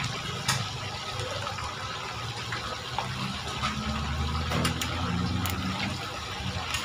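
Chicken pieces deep-frying in a large wok of hot oil, a steady bubbling sizzle with a few sharp clicks. The chicken is already cooked and is being fried a second time with its galangal spice to crisp it. A low hum sits underneath.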